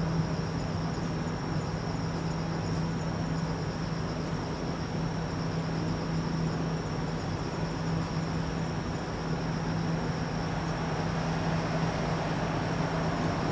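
Steady night-time outdoor ambience: a constant low hum and an even haze of distant city traffic noise, with insects trilling steadily high above. No clear firework bang stands out.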